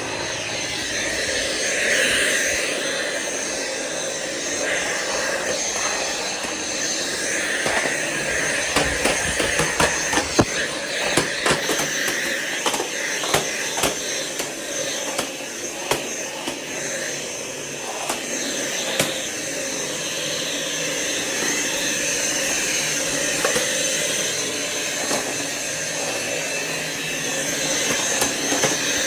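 Dyson V7 cordless stick vacuum running steadily, a rush of air with a constant high-pitched whine, broken through the middle by a run of sharp clicks and knocks.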